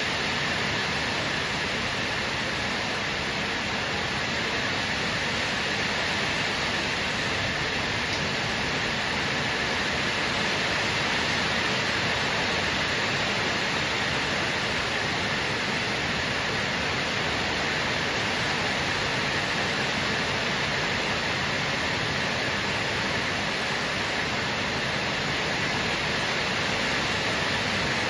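Heavy downpour: rain falling hard and steadily, an even, unbroken hiss.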